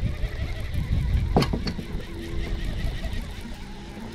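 Low rumble of wind and handling noise on a body-worn camera's microphone, with two sharp clicks about a second and a half in.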